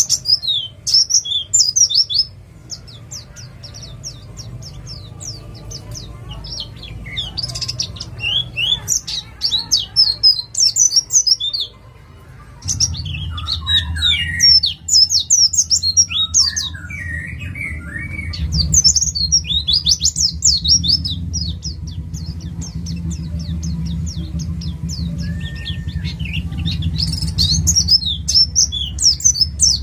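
White-eye (pleci) singing in repeated bursts of very fast, high, sweeping chirps: the rapid 'nembak' song of a wild-caught East Java bird. A steady low hum runs underneath and grows louder about 13 seconds in.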